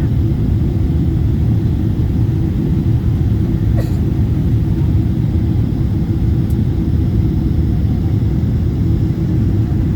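Jet airliner cabin noise: a steady, loud low rumble of engines and rushing air heard from inside the passenger cabin, with a faint click about four seconds in.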